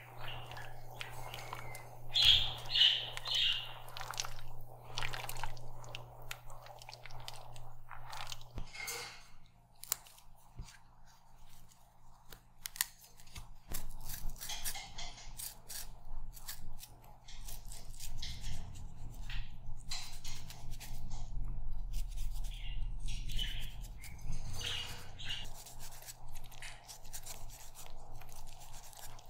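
Kitchen food-preparation sounds: scattered knocks, clicks and crunchy rustles of ingredients and utensils being handled, over a steady low hum.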